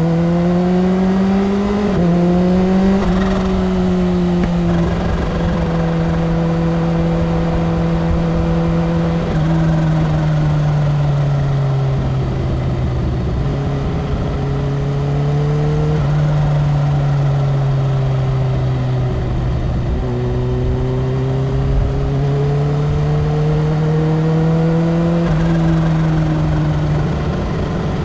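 Supercharged inline-four engine of a 2015 Kawasaki Ninja H2 running at highway speed, its pitch climbing under throttle and falling away, with sudden drops in pitch several times. A low wind rumble runs underneath.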